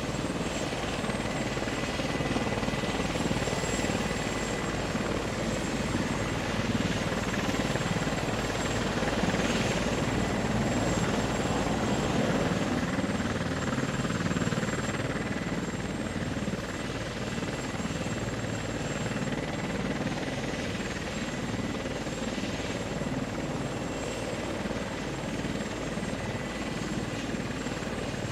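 Steady helicopter rotor and engine noise, with a faint steady high tone over it.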